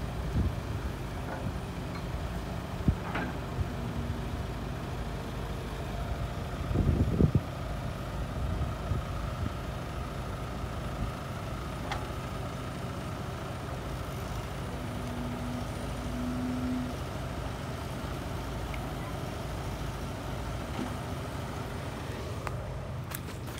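Diesel engines of an Isuzu dump truck and an excavator running steadily, with a few knocks; the loudest comes about seven seconds in.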